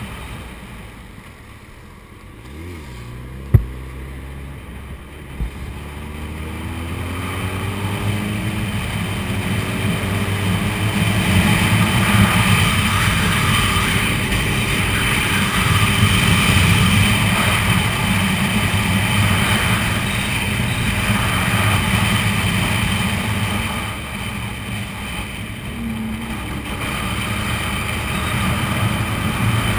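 Suzuki Hayabusa's inline-four engine pulling away and rising in pitch through a few gear changes, then running steadily at cruise with wind and road noise on the helmet-mounted microphone. It eases off for a moment late on, then picks up again. A single sharp click a few seconds in is the loudest moment.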